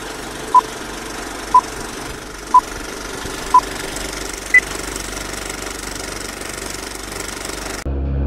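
Electronic countdown beeps: four short beeps a second apart, then a single higher beep, over a steady noise that cuts off suddenly near the end.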